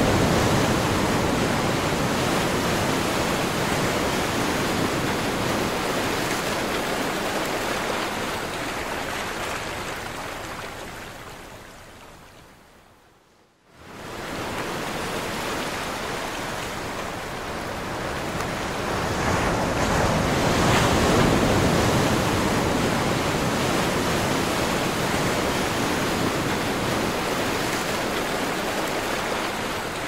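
Sea surf washing on a pebble beach as a steady rush. About ten seconds in it fades away to near silence, comes back abruptly a second or so later, and swells up again around twenty seconds in.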